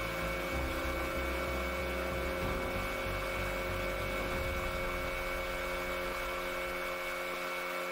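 Outboard motor running steadily as a small boat cruises along the river, a constant drone made of several steady tones.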